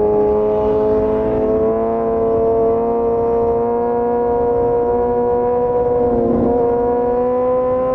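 Inline-four sport motorcycle on an aftermarket full-system exhaust, running at a nearly constant engine speed while cruising. It gives a steady, even drone whose pitch dips slightly and comes back about six seconds in.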